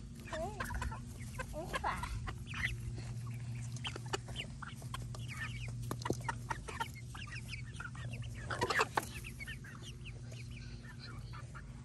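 A flock of chickens clucking and giving many short overlapping calls while they peck at a food bowl, with a few sharp taps among them and a louder burst of calls about nine seconds in. A steady low hum runs underneath.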